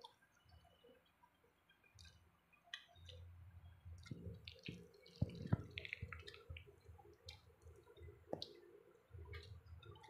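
Faint, scattered clicks and taps of a metal fork and spoon on a plate, with a low handling rumble through the middle.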